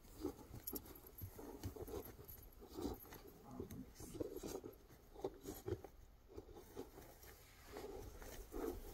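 Belgian Malinois holding a bite on a decoy's padded bite jacket: faint, irregular bursts of the dog's breathing and of the jacket rustling as it tugs, with light scuffs of paws on grass.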